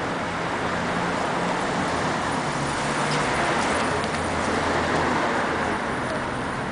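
Steady city street traffic noise, swelling a little in the middle as a vehicle passes, over a low engine hum.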